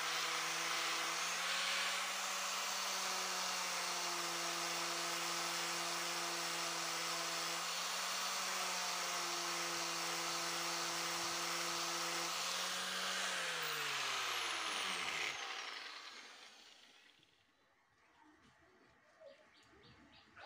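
Angle grinder with a sanding disc grinding a steel knife blade: a steady motor whine over a harsh grinding hiss, the pitch shifting slightly as the disc is pressed on. About two-thirds through the grinder is switched off and winds down with a falling pitch. A few faint bird chirps near the end.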